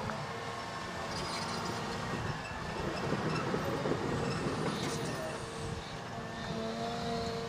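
Cat 323 hydraulic excavator's diesel engine running, with a steady hydraulic whine as the boom and bucket move and the machine swings. It grows louder and rougher for a couple of seconds in the middle.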